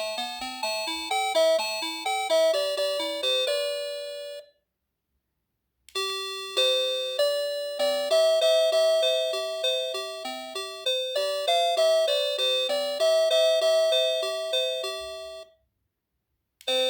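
NX-5776-675 doorbell playing its electronic chime melodies, a tune of separate bell-like notes that each fade. One tune ends about four seconds in; after a second and a half of silence a second tune plays for about ten seconds, and the next begins near the end.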